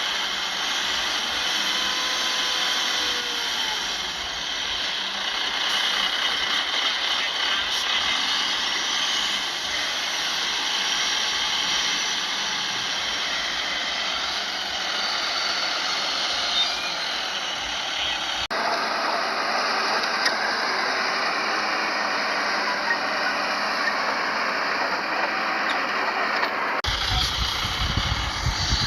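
Heavy earthmoving machinery running steadily: the diesel engine noise of a bulldozer and dump trucks working. The sound changes abruptly twice, about two-thirds of the way in and again near the end, where a heavier low rumble comes in.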